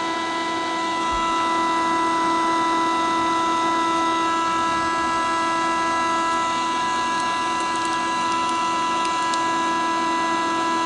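Laboratory high-shear homogenizer running at steady speed in a beaker of white serum, its motor giving a loud, even whine at one fixed pitch.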